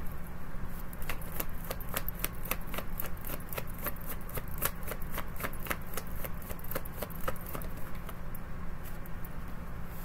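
A deck of tarot cards being shuffled by hand: a quick run of short, crisp card clicks and riffles, about three or four a second, thinning out near the end.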